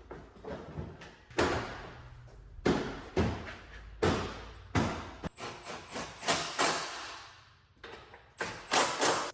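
A run of irregular sharp knocks and bangs, over a dozen, each with a short ringing tail, as in auto-body repair work on a vehicle.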